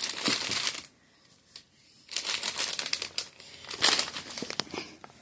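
Gift packaging crinkling and rustling as it is handled, in several bursts with light clicks and taps, and a pause of about a second near the start.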